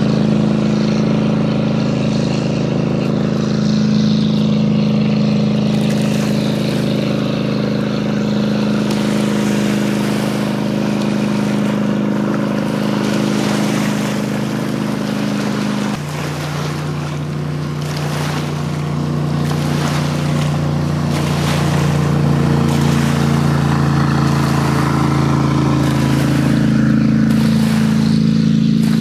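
Small jet boat's engine running at speed, a steady drone that drops suddenly in pitch about halfway through and climbs slowly again toward the end.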